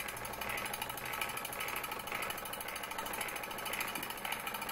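Bowman M101 model stationary steam engine running smoothly under steam, with a fast, even mechanical beat and a regular pulse about twice a second.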